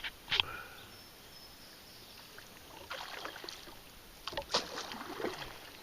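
Kayak paddle blades dipping and splashing in river water, a few uneven strokes.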